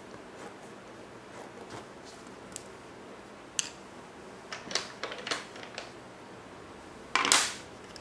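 Light clicks and small knocks of drawing tools and paper being handled on a desk, with one louder scrape near the end.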